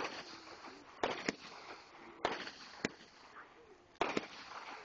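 Aerial fireworks bursting overhead: a string of sharp bangs, about seven in under five seconds, some coming in quick pairs.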